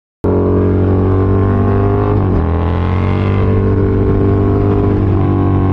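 Big motorcycle engine running steadily at riding speed, heard from on the bike. It cuts in suddenly just after the start and holds a steady note, with a small dip in pitch a little over two seconds in and slight rises as the throttle shifts.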